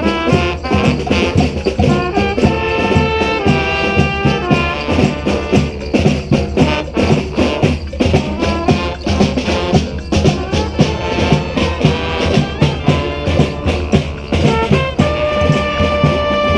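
Street brass band playing a Latin tune, with percussion keeping a fast, steady beat. Horns come in with held notes a few seconds in and again near the end.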